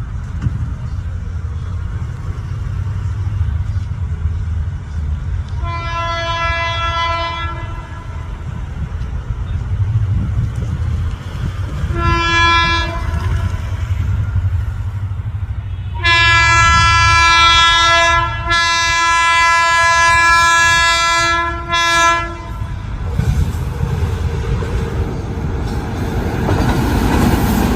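WAP7 electric locomotive's horn sounding three times: a blast of about two seconds, a short one of about a second, then a long one of about six seconds with a brief break in it. Under the horn is the steady low rumble of the express passing without stopping, which grows louder near the end.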